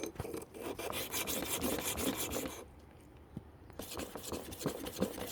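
Clipper comb blade rubbed back and forth on a diamond sharpening stone with sharpening paste: a quick, gritty scraping of metal on stone. It stops for about a second a little past halfway, then starts again.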